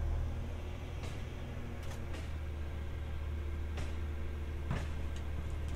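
Compost collection truck's engine idling steadily, with a few sharp clunks and clicks at intervals, the loudest near the end.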